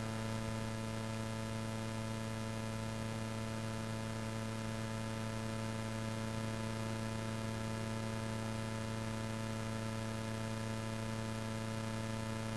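Steady electrical hum: a low buzz with a long string of evenly spaced overtones over faint hiss, unchanging throughout.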